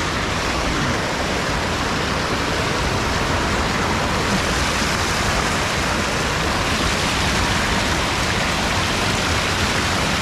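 Steady rushing of river water pouring over a full weir.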